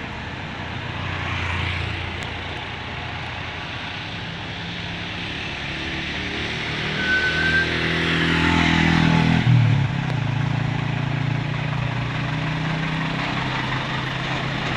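A bus driving close past with its engine running; the engine note swells and then drops in pitch as it goes by, about nine seconds in.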